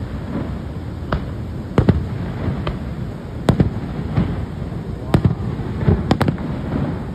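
Aerial fireworks bursting overhead: a string of sharp bangs at irregular intervals, two in quick succession near the end, over a steady low background rumble.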